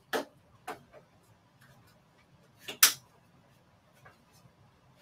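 A few light, sharp clicks and taps from handling long artificial nail tips and a fine nail-art brush, with the loudest double click about three seconds in.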